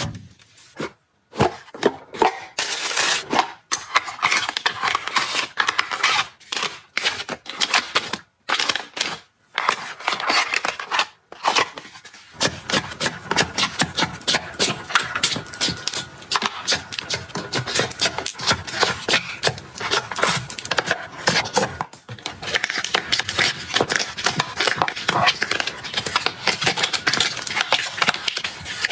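Objects being handled: scattered taps and clicks with rubbing and scraping, broken by short pauses, then a dense, continuous patter of small clicks and rubbing from about twelve seconds in.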